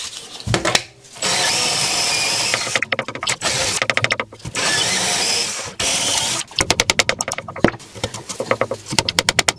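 Cordless drill-driver running in several short bursts as it fastens a wooden crosspiece, with stretches of rapid clicking between the steady runs.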